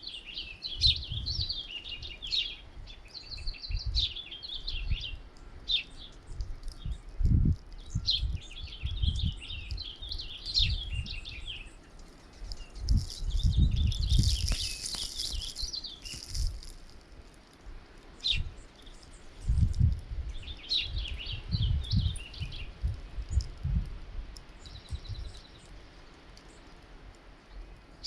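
Flock of small songbirds chirping in clusters of quick, high calls at a winter bird feeder. Low gusty rumbles of wind buffet the microphone throughout, with a brief rushing hiss about halfway through.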